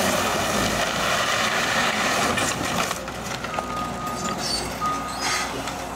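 Compact excavator demolishing a house: engine and hydraulics running while the bucket crunches and drags broken wall and debris, loudest in the first half. Two short steady beeps sound about three and a half and five seconds in.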